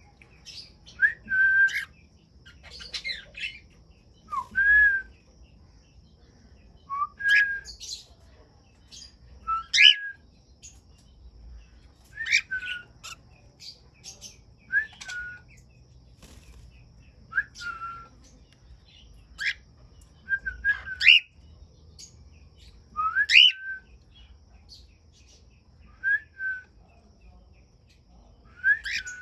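Cockatiels calling: short whistled calls, each a quick upward-sweeping whistle, repeated about every two seconds.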